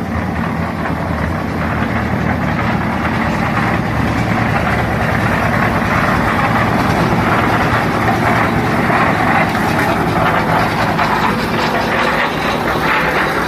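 Concrete mixer machine running steadily: its engine drones with a continuous rattling churn over it.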